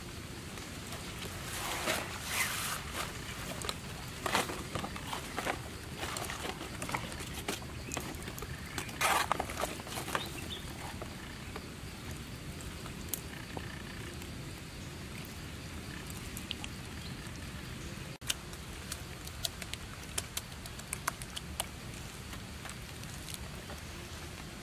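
Fresh banana leaves rustling and crinkling as they are laid out and folded by hand, loudest in the first ten seconds, then thinning to scattered light crackles and ticks over a steady outdoor hiss.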